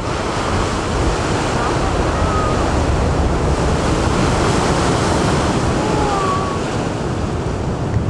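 Black Sea storm waves surging and breaking, with strong wind buffeting the microphone. The surge swells about a second in and holds for several seconds before easing slightly near the end.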